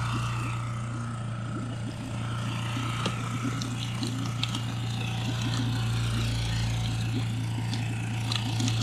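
Small Honda four-stroke outboard motor running at a steady speed, pushing an inflatable boat along, with light irregular splashing and knocking of water against the hull.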